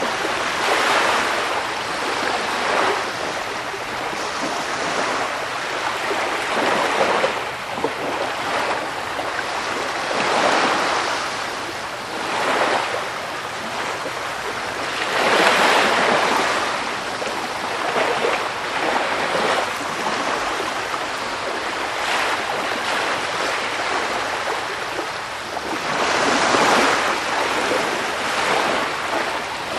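Sea waves washing onto the shore: a continuous rushing hiss that swells as each wave breaks, every few seconds, the loudest about halfway through.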